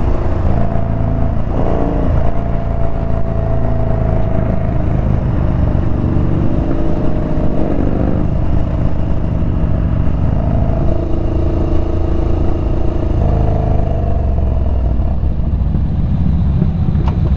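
Yamaha Bolt's air-cooled V-twin engine running under way on the road, its note rising and falling a few times with the throttle over a steady low rumble.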